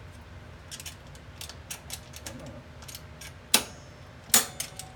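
Small metallic clicks and rattles of a bench clamp being released and an aluminium panel being handled on a drill press table, with two sharp metal clanks about three and a half seconds in, under a second apart.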